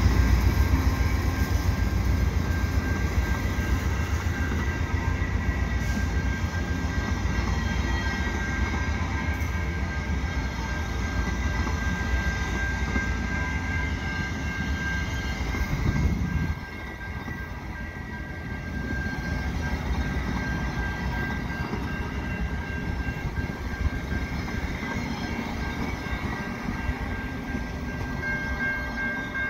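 VIA Rail LRC passenger cars rolling slowly past close by: a steady rumble of wheels on the rails, with a thin steady high tone above it. The heavy low rumble drops off suddenly about halfway through.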